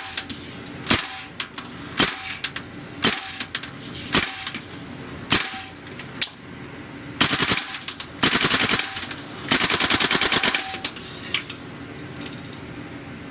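Airsoft gun firing through a suppressor: seven single shots about a second apart, then three short full-auto bursts, the last and longest about a second long.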